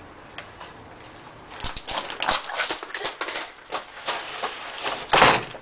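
Broom bristles sweeping a hard doorstep in quick, irregular strokes, starting about a second and a half in, ending in one louder thump near the end.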